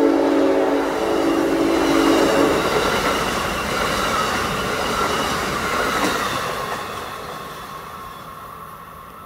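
Amtrak ACS-64 electric locomotive's air horn holding a steady chord, cutting off about two and a half seconds in. Then the wheels of the passenger cars run past on the rails, fading as the train moves away.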